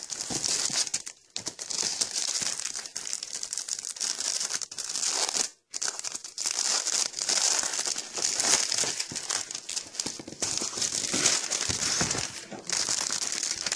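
Clear plastic shrink-wrap crinkling and tearing as it is picked at and peeled off a workbook folio by hand. The crackle is continuous and irregular, with brief pauses about a second in and about halfway through.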